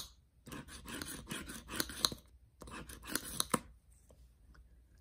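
Scratch-off lottery ticket being scraped with a plastic scratcher tool, in two runs of rapid back-and-forth strokes. The first run lasts under two seconds and the second about a second; the scraping stops a little before the end.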